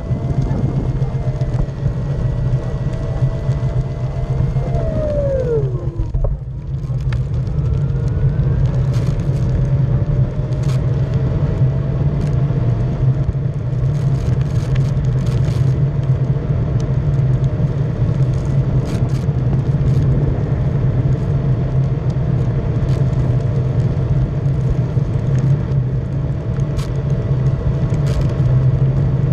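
A one-wheeled electric board's hub motor whines over a steady tyre rumble on asphalt. The whine falls in pitch and dies away about five seconds in as the board slows, then rises again as it picks up speed and holds steady. Small clicks come through now and then.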